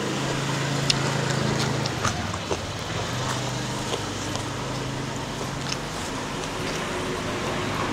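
A motor vehicle engine running with a steady low hum that drops away for about a second two seconds in and weakens near the end, with scattered small clicks and taps over it.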